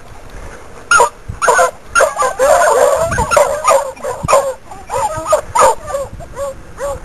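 Pack of basset hounds baying, many voices overlapping in a chorus of rising and falling calls that starts about a second in: hounds giving tongue on a scent trail.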